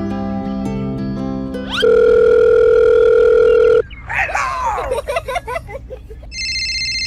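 Light plucked-string music, cut off about two seconds in by a loud steady telephone dial-tone beep that lasts about two seconds. Squeaky, sliding cartoon sound effects follow, and about six seconds in a high steady electronic phone tone starts.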